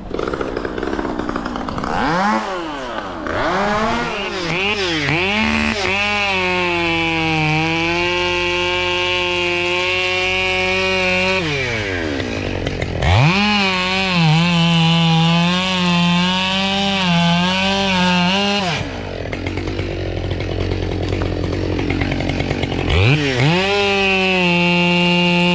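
Two-stroke chainsaw engine revved repeatedly: a few quick blips of the throttle, then held high for several seconds at a time with the pitch wavering slightly, dropping back to idle twice between runs.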